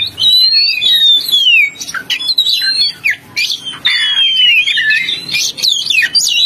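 Oriental magpie-robin singing: a fast, loud run of clear whistled notes that slide up and down, mixed with short harsh chirps, as in the lure call recordings used to draw in kacer.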